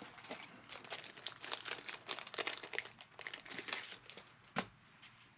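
Baseball cards being handled on a tabletop: a quick run of crinkling, rustling scrapes, then one sharp snap about four and a half seconds in, the loudest sound.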